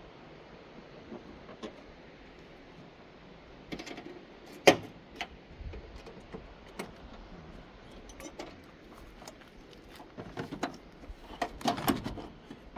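Scattered sharp metal clicks and clinks of hand tools working on a car battery's hold-down. One sharp click comes about five seconds in, and a busier run of clinks comes near the end.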